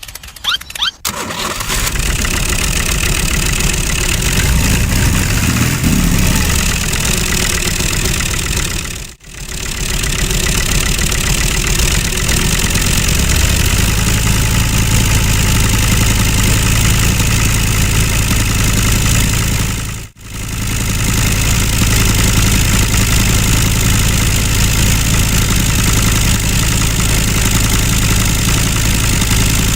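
Mini tractor's motor running steadily, cut off briefly twice, about nine and twenty seconds in; a steady low hum joins about halfway through.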